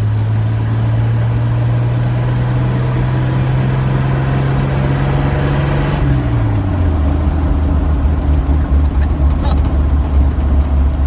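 A vehicle's engine droning with road noise, heard from inside the cab. The drone rises slowly in pitch, then drops sharply to a lower pitch about six seconds in, and runs rougher and more uneven after that.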